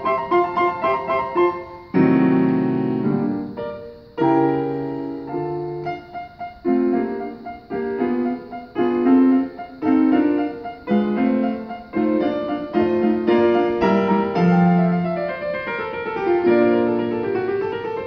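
Two grand pianos played together as a duet: a continuous flow of struck chords and running notes, with a loud chord attack about two seconds in.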